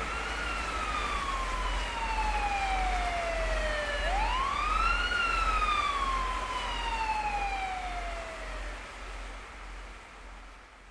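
Emergency siren wailing twice, each wail rising quickly and then falling slowly, over a steady low city rumble. It fades out near the end.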